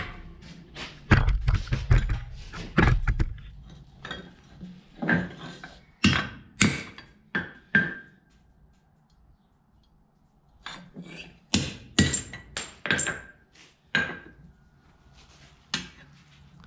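Hand hammer striking a hardened, quench-cracked steel axe head held in tongs on an anvil: a series of sharp metallic blows, some ringing briefly. There is a pause of a couple of seconds in the middle, and heavier thumps of handling come at the start.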